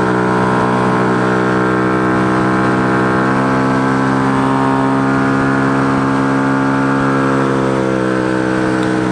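Benzer motorcycle engine running at steady cruising revs, with wind rush. The pitch rises a little about three seconds in and eases back near the end.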